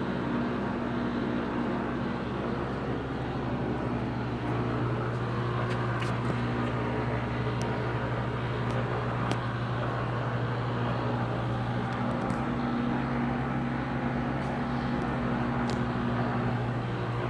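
A VFD-driven Monarch 10EE precision lathe running with a steady, even hum. A few faint clicks are heard now and then.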